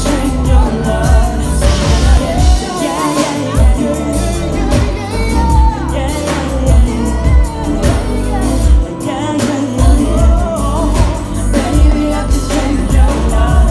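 Two women singing an R&B song live, backed by a band with drum kit and bass.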